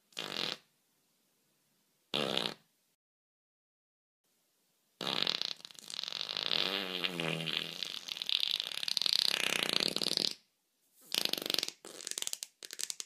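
Fart sounds: two short ones, then one long drawn-out fart of about five seconds that wavers in pitch partway through, then three quick short ones near the end.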